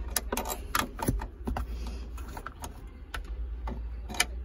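Irregular metallic clicks and taps of a 10 mm open-end wrench being fitted to and worked on the handbrake cable's adjusting nut at the base of the lever, the sharpest clicks near the end, over a steady low hum.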